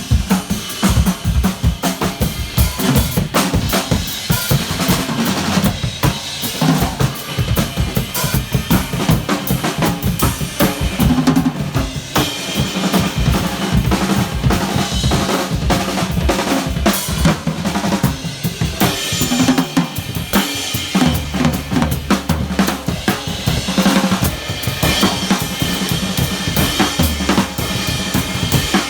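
Live drum kits played in a fast, dense drum battle: rapid snare and rimshot hits over kick drum, with cymbals. About two-thirds of the way through, long low bass notes come in under the drums.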